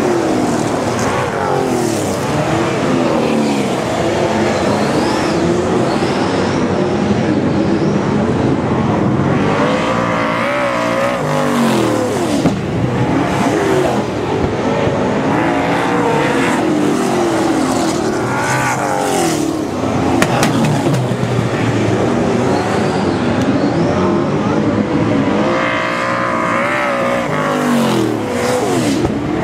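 Super saloon race cars' V8 engines racing round a dirt speedway oval, revving up and down through the corners. The engine note swells and falls away as the pack passes, about every eight seconds.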